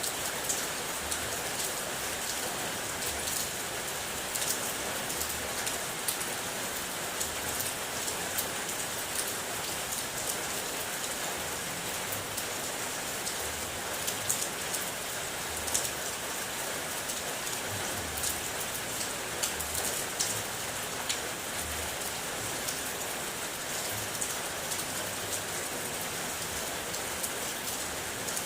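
Steady rain drumming on a car's roof and body, heard from inside the car, with many sharp single-drop taps over a constant hiss.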